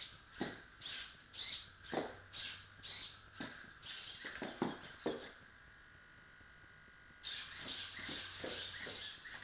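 Walking robot's hobby servo motors whirring in quick bursts with each step, about two steps a second, its plastic feet tapping on ceramic tile. About five and a half seconds in the servos fall silent for nearly two seconds, then start whirring again more continuously.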